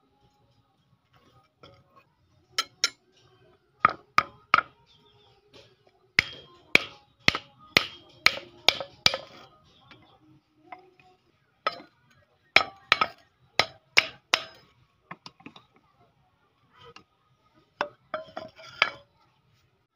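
Sharp metallic clinks and knocks in quick runs of several strokes, about two a second, each with a brief ring. They come from a thin steel knife blade clamped in a wooden block on an anvil.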